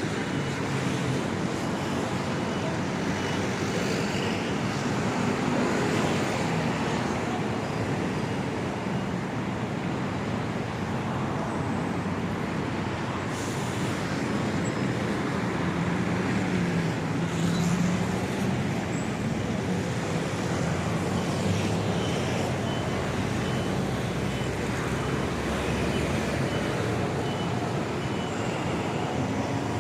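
City street traffic: a steady wash of passing cars and larger vehicles, with a heavier engine swelling past about halfway through. Faint high beeps repeat at times.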